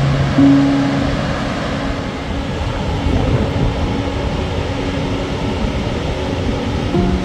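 Background music with slow held notes, changing every few seconds, over a steady rushing noise.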